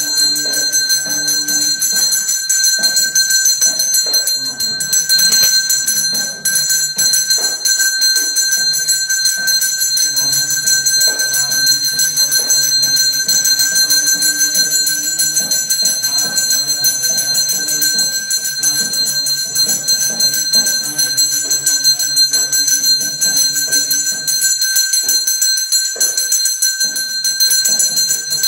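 Puja bell rung rapidly and without a break during aarti, the lamp offering to the deity, a steady high ringing. A lower held tone comes and goes beneath it.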